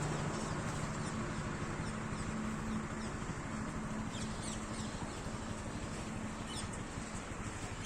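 Combine harvester running steadily: an even rushing noise under a low hum that comes and goes, with faint high chirps in the second half.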